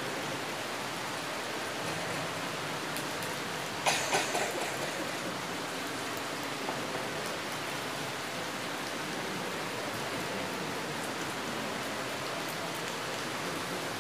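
Steady, even hiss of background noise, with a brief clatter of clicks and knocks about four seconds in.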